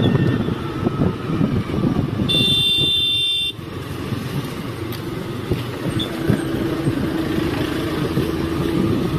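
Riding on a scooter: engine noise and wind buffeting the microphone. A vehicle horn sounds once for about a second, around two to three seconds in, and a steady low hum joins the noise about two-thirds of the way through.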